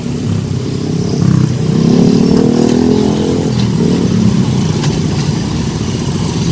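A crowd of motorbikes and scooters riding past at close range, several small engines revving and running over one another with rising and falling pitch.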